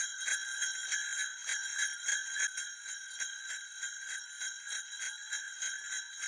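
Sleigh bells shaken in a quick, steady rhythm, about five shakes a second, with a bright ringing jingle.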